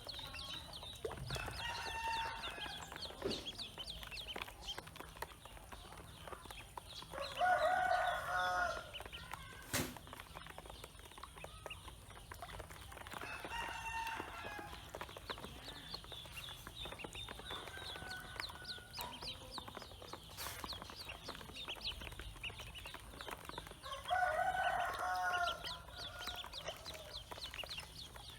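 Pekin ducklings peeping in quick, continuous high chirps. Twice, at about a quarter of the way in and again near the end, a louder drawn-out call from a larger fowl, like a rooster crowing, rises over them.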